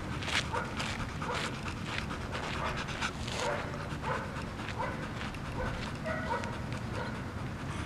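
Belgian Malinois panting rapidly with her mouth open, a quick regular rhythm of about two breaths a second.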